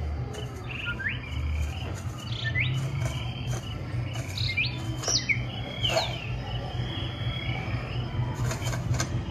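Night-time farm ambience on a dark ride: short rising bird chirps about once a second over a steady cricket trill, with a constant low hum underneath.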